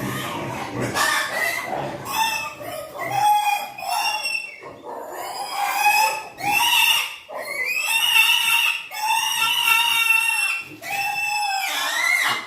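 Piglets squealing: a run of high-pitched squeals, some held for a second or more, one after another with short breaks.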